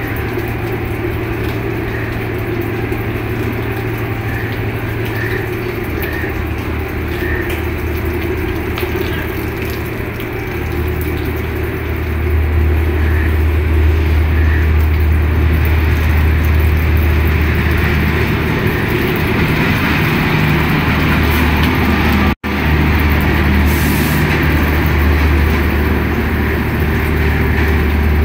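Steady low mechanical drone with a hiss over it from railway train machinery, getting louder about twelve seconds in. Faint high chirps sound about once a second over the first several seconds.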